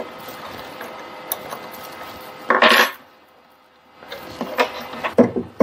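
Metal-on-metal handling at a mini lathe's belt tensioner with a 10 mm open-end wrench: a steady scraping for about two and a half seconds, one loud metallic clank near the middle, then a few light clinks near the end.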